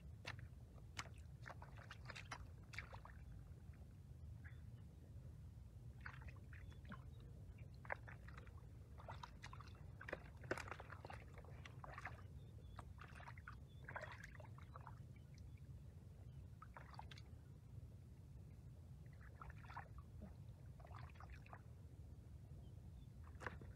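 Hands sloshing and squelching through shallow muddy water, with scattered short splashes and wet slaps while catfish are grabbed from the mud. A low steady rumble runs underneath.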